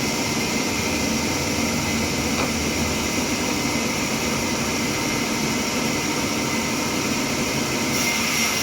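Sawmill machinery running steadily, a constant loud mechanical noise with no pauses.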